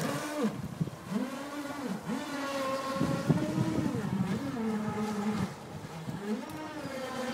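Radio-controlled model speedboat's motor whining as it is throttled up and down, the pitch rising and falling in repeated swells as the boat speeds and turns.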